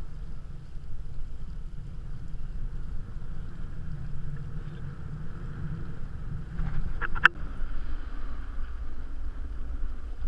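Wind buffeting the microphone over a steady hiss of water rushing past a kite hydrofoil as it rides. About seven seconds in there is a quick cluster of sharp clicks.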